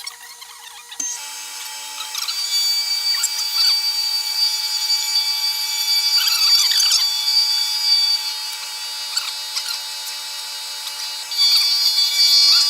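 Milling machine running, its cutter machining a wooden block: a steady whine with a scratchy cutting noise. It gets louder about a second in and again near the end.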